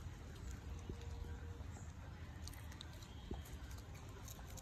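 An otter chewing soft pork bologna held in its paws: small, scattered wet clicks over a low steady rumble.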